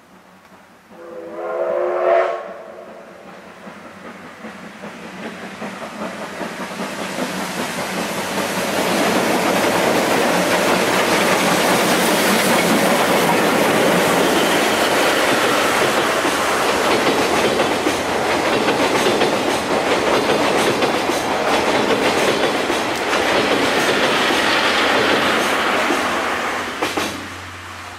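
A JNR Class C57 steam locomotive, C57 180, sounds its steam whistle briefly about two seconds in. It then hauls its train across a steel truss bridge: the rumble and clatter of the wheels on the bridge build up, hold loud for most of the crossing, and die away near the end.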